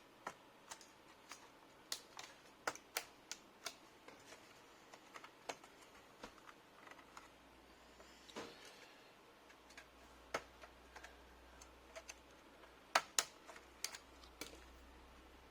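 Irregular sharp plastic clicks and taps, with a short scraping rustle about eight seconds in: the rear plastic shell of an HP Omen gaming laptop being pried apart with a plastic pry tool.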